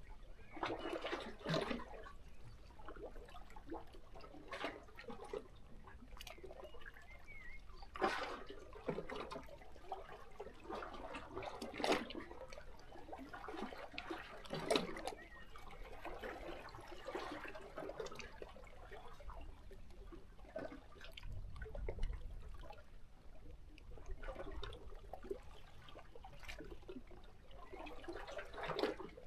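Small sea waves lapping and sloshing against shoreline rocks, an irregular wash broken by a few sharper splashes spaced several seconds apart.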